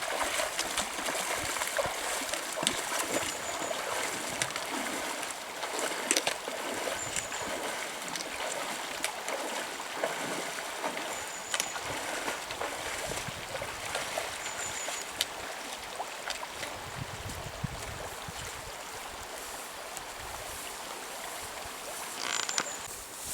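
Shallow river water running over stones, with scattered clicks and splashes from someone wading across it.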